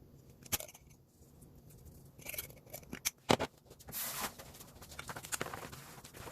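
Irregular clicks and knocks of kitchen handling, with a loud knock about three seconds in and a short rustling burst just after.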